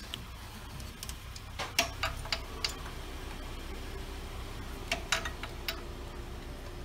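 Light metallic clicks and taps from hand tools and fittings being worked on a V8 engine, in two short clusters about two and five seconds in, over a faint steady hum.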